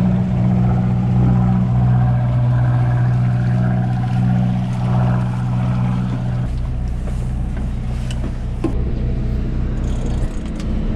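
Sportfishing boat's diesel engines idling, a steady low drone. About six seconds in, the drone gives way to a lower hum, with a few light knocks near the end.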